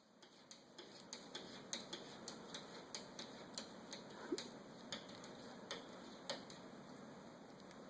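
A run of light, sharp clicks or taps, irregular, about two to four a second.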